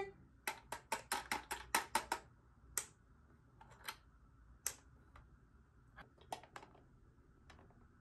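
Hard plastic clicks and taps from a toy woodpecker feeding game: a quick run of about eight taps on the plastic tree trunk, then a handful of scattered single clicks as the woodpecker's magnetic tongue picks up a caterpillar bug and feeds it to the baby bird.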